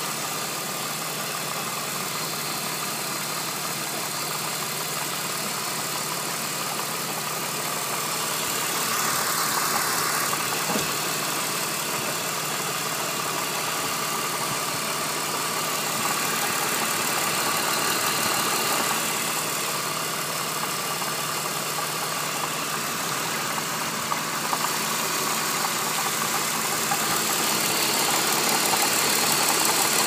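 BMW E46 engine idling with a clattering from the front of the engine, getting louder near the end. The clatter comes from a defective water pump.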